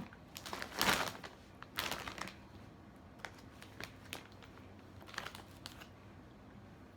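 Snack-bag packaging crinkling in a few short rustles, with scattered light clicks between them.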